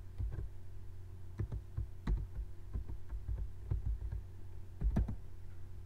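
Computer keyboard being typed on: irregular single keystroke clicks as a spreadsheet formula is entered, over a steady low electrical hum.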